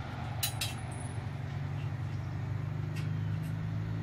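Steady low engine drone, with a few light clicks about half a second in and again around three seconds.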